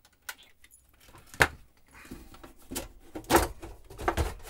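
Sheet-metal top cover of a hi-fi tuner case being handled and lifted off: a series of clicks and metal knocks, the loudest about a second and a half in.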